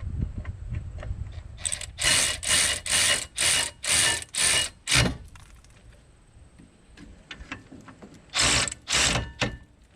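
Ratchet wrench clicking in quick back-and-forth strokes as the caliper bracket bolts are tightened. There is a run of about seven strokes a couple of seconds in, then two more near the end.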